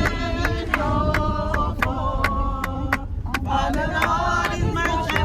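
A group singing a gospel chorus, with sharp percussion hits keeping a steady beat.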